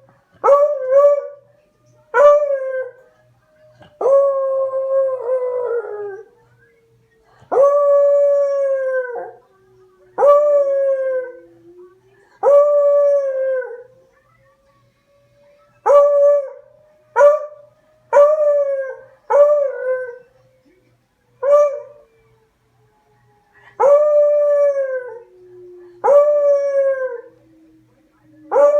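A pet dog trying to howl: a run of about fourteen short howls, some clipped to a fraction of a second and some drawn out for a second or two, each dropping in pitch as it ends.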